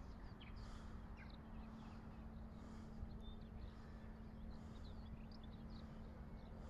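Small birds chirping, faint short twittering notes repeated all through, over a steady low hum.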